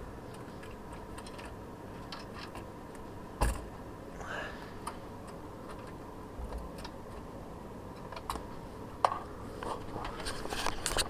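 Scattered clicks and knocks of a CPU heatsink and its metal retention clip being handled and worked onto the motherboard's plastic bracket, over a faint steady hum. One louder knock comes about three seconds in, and a cluster of clicks comes near the end.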